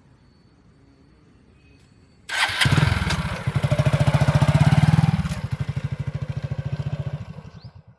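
A small engine starts abruptly a couple of seconds in and runs with a rapid, even beat, louder for a few seconds. It then drops, and its beats slow and fade out near the end as it is switched off.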